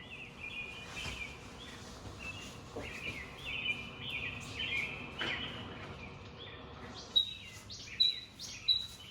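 Birdsong from the TV's ambient-mode nature soundtrack: birds chirping in short repeated phrases, with a few clear high single whistled notes in the last couple of seconds.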